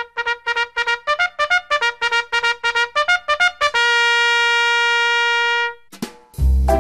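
Background music: a quick run of short, trumpet-like notes, about four or five a second, ending in one long held note. After a brief pause near the end, a new tune with a heavy bass beat starts.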